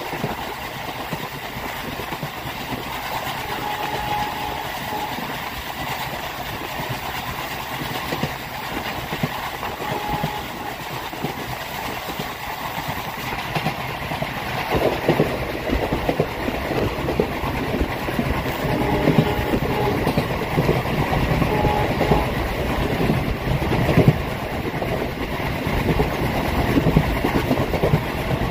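Indian Railways ICF passenger coaches running at speed, wheels clattering over the rail joints under a steady rumble. The clatter grows heavier and louder about halfway through.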